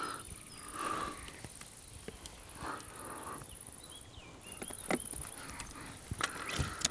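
Insects chirring steadily in long summer grass, with a few light knocks and clicks near the end as the air rifle is handled.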